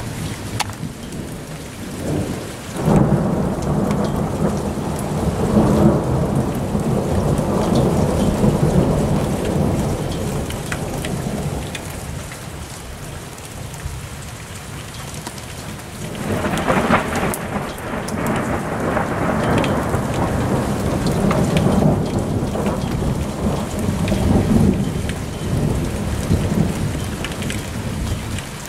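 Thunder rolling in two long rumbles, the first starting about three seconds in and the second about sixteen seconds in, over steady rain.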